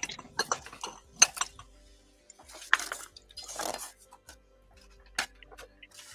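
Glass paint jar being handled and set down on a cutting mat: a run of sharp clinks and knocks in the first second and a half, two short scraping rustles near the middle, and one more click about five seconds in.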